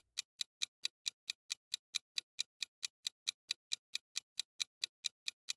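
Clock-tick sound effect ticking evenly at about four to five ticks a second, counting down the time to think before a quiz answer.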